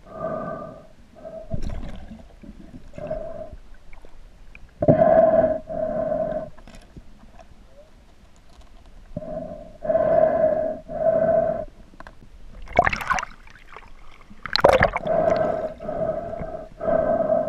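A snorkeler breathing through a snorkel, heard underwater: breaths come in pairs every few seconds, each with a steady tone. Two short, sharp rushes of water are heard near the end.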